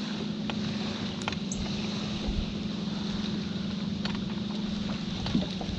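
A small electric motor on a fishing boat humming steadily on one low pitch, over a hiss of wind on the microphone, with a few faint ticks.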